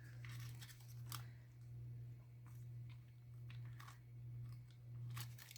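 Faint crinkling and light clicks of small nail-foil packaging being handled, over a steady low hum.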